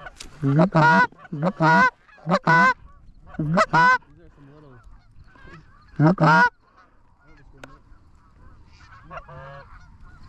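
Goose honking: loud, quick two-note honks in about five short bursts through the first six and a half seconds, then only faint, scattered honks near the end.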